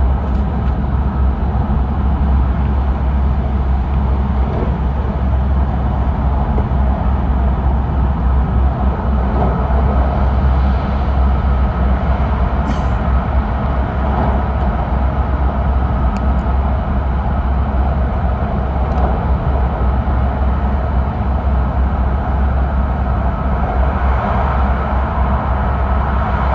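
Steady low rumble and running noise of an E5 series Shinkansen at speed, heard from inside the passenger car, with a brief high click about 13 seconds in.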